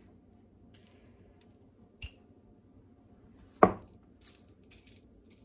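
Quiet kitchen handling of the homemade steak-seasoning container: a faint click about two seconds in, one sharp knock a little past halfway, then a few soft taps near the end.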